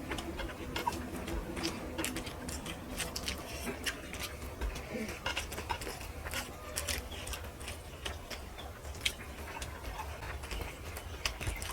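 Close-up eating sounds: chewing with many small irregular wet clicks and smacks of the mouth.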